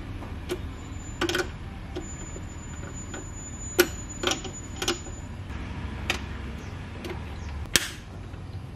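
Irregular metallic clicks and clinks of a small wrench on the nut of an inverter's battery-cable terminal as the nut is tightened, about nine in all, over a steady low hum.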